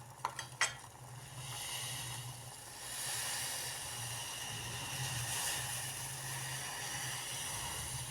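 A small pot of water with tea leaves, ginger, fennel and cardamom boiling on the stove: a steady hiss that grows a little louder about three seconds in. Two short clicks come near the start.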